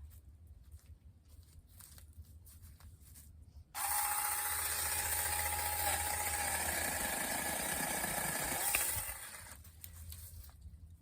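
Saker mini battery-powered chainsaw starting abruptly about four seconds in with a high whine and chain noise, running for about five seconds as it cuts a small limb, then winding down. Before it, only faint handling ticks.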